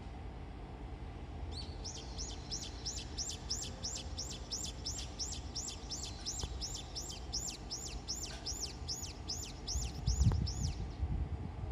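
A bird calls a long, even series of high, down-slurred notes, about two or three a second, which stops shortly before the end. A low rumble comes in near the end.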